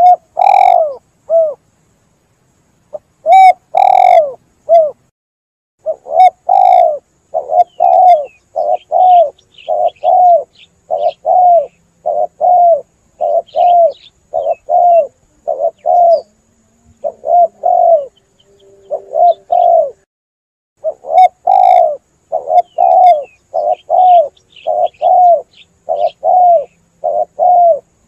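Spotted dove cooing over and over: a long run of short coo notes, about two a second, broken by a few short pauses, with faint high chirps of smaller birds behind.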